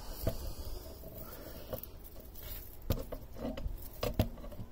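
A handheld camera being moved, giving about five scattered light clicks and taps over a low background rumble.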